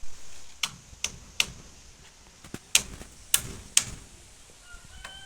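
A series of about seven sharp, irregularly spaced knocks or taps, followed near the end by a faint thin whistle-like tone.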